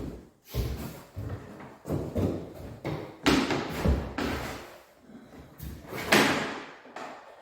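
A run of irregular knocks, bumps and thuds from objects being handled and set down, with a longer scrape about three seconds in and another about six seconds in.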